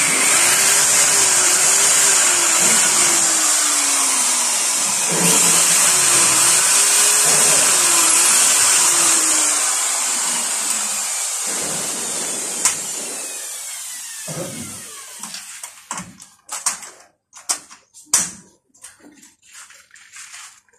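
Electric drill boring into a concrete wall: two long runs, the motor's pitch wavering under load, the second trailing off over a few seconds. After it stops, scattered light knocks and clicks.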